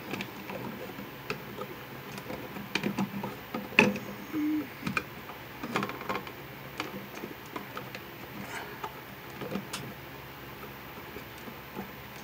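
Scattered light clicks, rustles and knocks of stiff electrical wires and fingers against a plastic outlet box as the spliced wires are folded and pushed back into it. The loudest knock comes about four seconds in.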